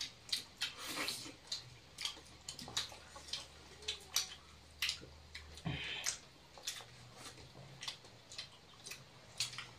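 Eating by hand from steel plates: a string of irregular short clicks and smacks from fingers working rice on the plates and from chewing.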